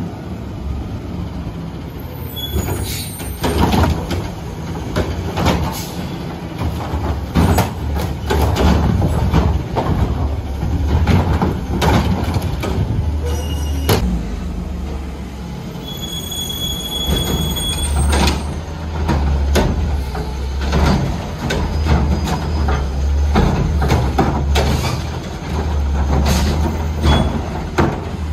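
Garbage truck engine running steadily under many loud metal clanks and bangs, with a brief high squeal partway through.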